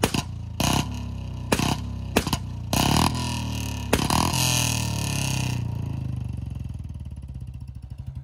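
BS6 Royal Enfield Bullet single-cylinder engine, fitted with a bend pipe and a short-bottle silencer, being revved and backfiring through the exhaust: a string of sharp pops and bangs, several in quick succession about three seconds in. Past the middle the revving stops and it settles into its slow thumping idle.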